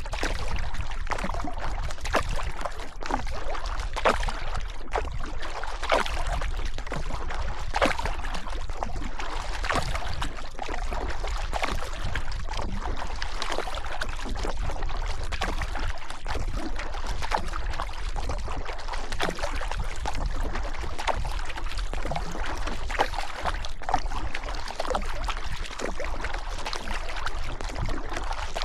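River water rushing and splashing close by, with irregular sharp splashes over a steady wash and a constant low rumble underneath.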